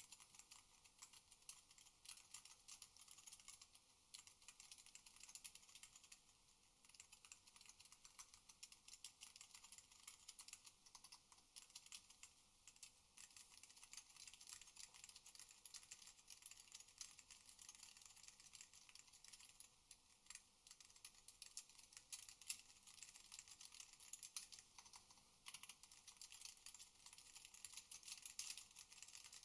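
Continuous fast typing on a 60% mechanical keyboard with Alps SKCM Salmon switches, a dense run of light key clicks with a few brief lulls.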